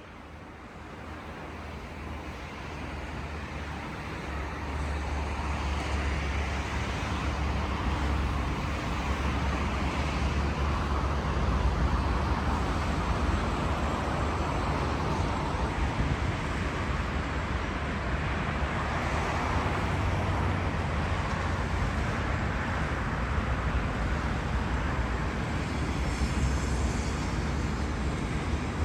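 Steady road traffic noise with a deep rumble, fading in over the first several seconds and then holding level.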